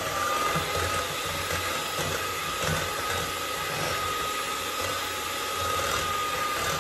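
Handheld electric mixer running steadily with a high whine, its beaters whipping heavy cream in a glass bowl.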